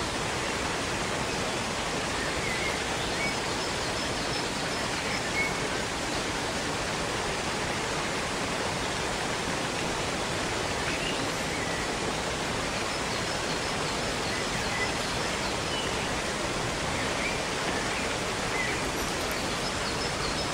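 Waterfall rushing steadily, with faint high bird chirps here and there.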